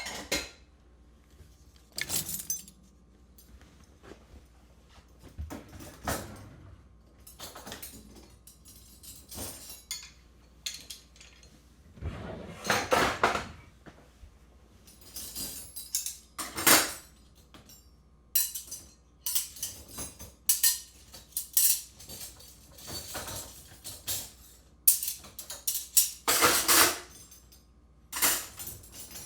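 Dishes, glasses and cutlery clinking and clattering as a dishwasher is unloaded, in irregular bursts of handling with short pauses between. The loudest clatters come about halfway through, again a few seconds later, and near the end.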